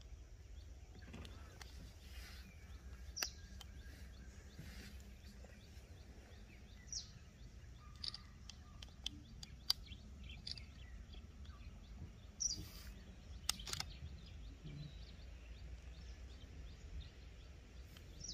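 Outdoor ambience: scattered short, high bird chirps over a steady low background rumble, with a few sharp clicks.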